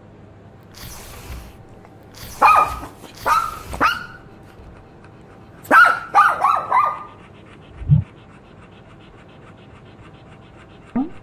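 Dog barking: three sharp barks, then a quick run of four or five barks, with a short breathy sniff about a second in. A single dull thump comes about eight seconds in, and a short rising yelp near the end.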